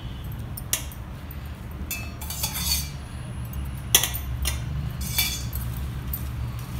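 Irregular sharp clinks of a steel spoon against a steel mixing bowl and of bangles knocking together as hands rub oil into flour, the loudest about four seconds in, over a steady low hum.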